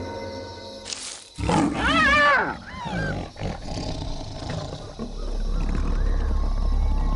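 A lion attacking a hyena. About a second and a half in there is a sudden loud snarl, then the hyena's high, arching cries, two in quick succession, with a fainter one a few seconds later as they grapple.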